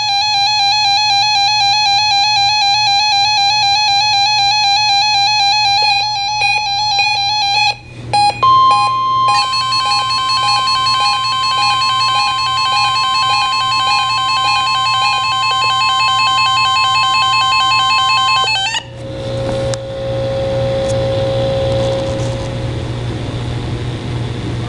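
Emergency alert tones: a pulsing, warbling multi-tone signal for about eight seconds, then after a brief break a single steady high alarm tone held for about ten seconds over the same pulsing tones. Everything cuts off suddenly about eighteen seconds in, leaving a steady hiss with a low hum.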